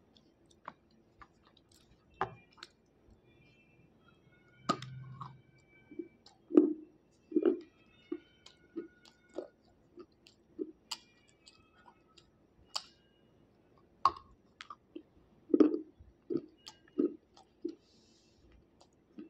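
Water-soaked slate being bitten and chewed close to the microphone: a string of crisp crunches and clicks, about one or two a second, over a faint low steady hum.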